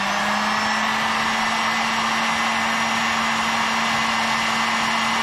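Ginour 2000 W electric heat gun running steadily, blowing hot air onto an aluminium can: a steady rush of air over a low, even hum from its fan motor.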